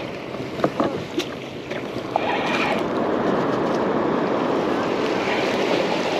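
Water sloshing against a kayak hull, with wind on the microphone and a few sharp knocks on the boat near the start. The water noise grows steadier and louder about two seconds in.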